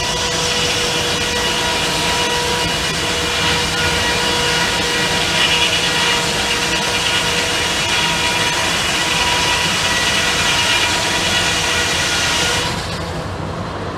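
A 64-inch circular sawmill blade ripping through a log: a loud, steady, noisy rasp with a steady whine in it. It drops off sharply about a second before the end as the cut finishes.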